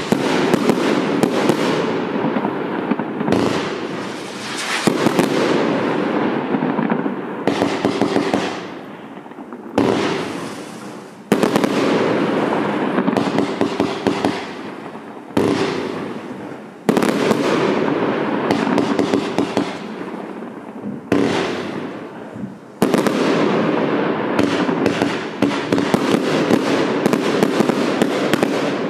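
A 126-shot fireworks cake firing a rapid, unbroken run of shots and bursts, with sudden louder volleys starting several times.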